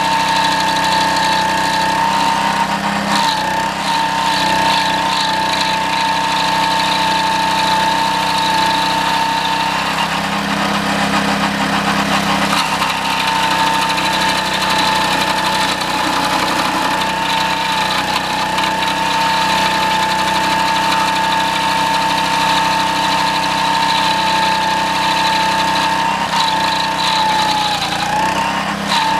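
Homemade stump grinder's 6.5 hp Honda single-cylinder four-stroke engine, driving a 20-inch toothed cutting wheel through a 6:1 gear reduction, running steadily at speed while grinding a green pine stump. Its steady whine breaks up for a couple of seconds near the middle and wavers briefly near the end.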